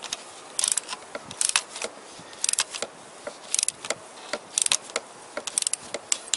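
Ratchet head of a torque wrench clicking as cylinder head cover bolts are run down in short back-and-forth strokes. Six quick runs of clicks, about one a second.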